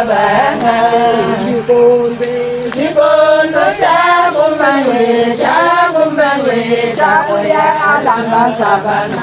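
A group of women singing together, with several voices carrying the melody.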